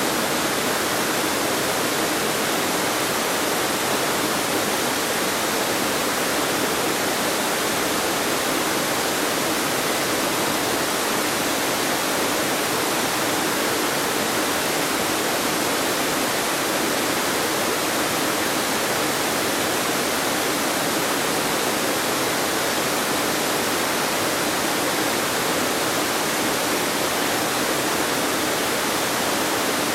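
Waterfall pouring over rock ledges into a creek: a steady, even rush of falling water heard from close below, unchanging throughout.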